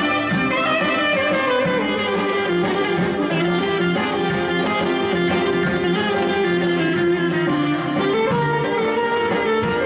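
Live Greek folk dance music: a clarinet plays the melody, with a long falling run early on, over violin and plucked-string accompaniment, without a break.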